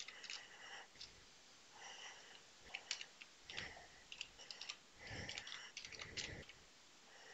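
Quiet, irregular computer keyboard typing: scattered keystroke clicks, some in quick runs, as code is typed and edited.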